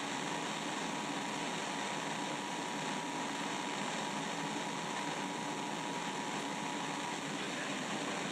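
Steady hiss of radio static from a receiver between weather-radio broadcasts, with a faint high steady whistle that stops near the end.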